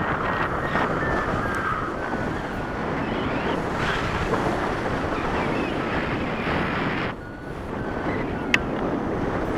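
Airflow rushing over the microphone of a handheld camera on a paraglider in flight, a steady noise. A high, evenly repeated beeping runs through the first two seconds, the rush dips briefly just after seven seconds, and there is a single sharp click about eight and a half seconds in.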